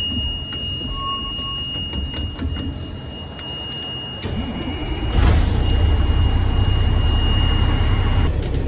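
Truck engine running, getting louder after about five seconds, with a short burst of hiss at that point. A steady high-pitched warning tone sounds over it and cuts off near the end.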